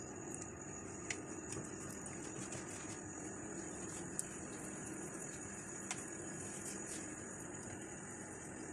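Quiet room tone with a steady high-pitched whine, and a few soft clicks as hands fold a chicken-filled spring-roll pastry sheet on a ceramic plate.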